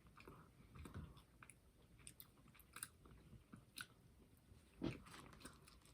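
Faint chewing of a soft fig bar: small wet mouth clicks and smacks, with one low thump about five seconds in.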